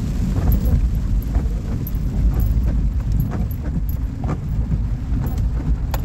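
Car driving on a wet road, heard from inside the cabin: a steady low rumble of road and engine noise, with scattered light ticks through it.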